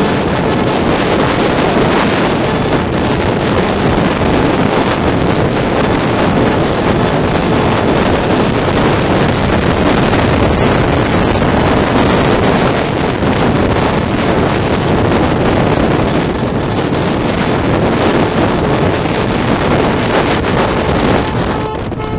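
Loud steady wind rush buffeting the microphone, with the road noise of a moving car.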